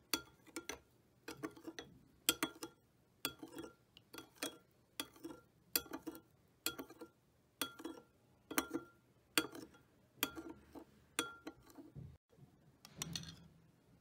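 A metal spoon stirring an oil dressing in a small glass bowl, clinking against the glass about twice a second, each clink ringing briefly. Near the end the clinking stops and gives way to a softer scrape.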